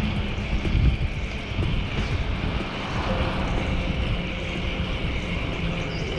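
Steady road-traffic noise: motor vehicle engines running close by with a dense low rumble and a faint held hum.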